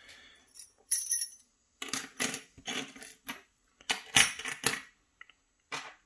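Several short bursts of light metallic clicking and jingling from a dismantled Evva EPS slider-lock core: its loose sliders rattle as the core is handled and the key is slid back in.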